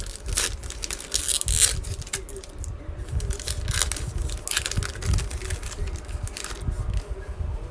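Trading cards and their packaging being handled: repeated rustling, crinkling and scraping with light handling bumps.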